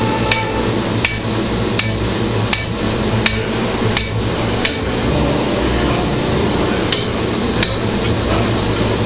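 Hand hammer striking red-hot steel on an anvil while forging an axe head, a regular blow about every 0.7 s. The blows stop for about two seconds midway, then resume.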